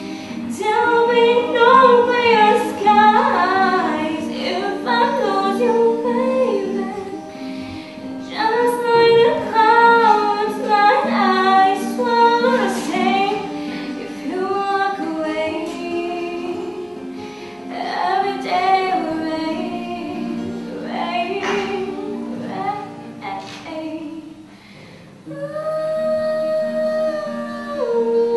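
A girl singing a song to her own acoustic guitar, the guitar keeping up steady chords under the melody. The singing breaks off briefly shortly before the end, then comes back on a long held note.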